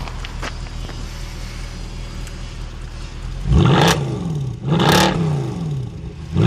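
Jaguar X-Type's 2.5-litre V6 engine idling, then revved in three quick throttle blips from about halfway, each rising sharply and falling back toward idle, the last at the very end.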